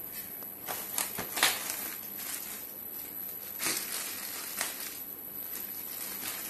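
Plastic packaging bag crinkling and crackling as it is handled, in irregular bursts, the loudest about a second and a half in.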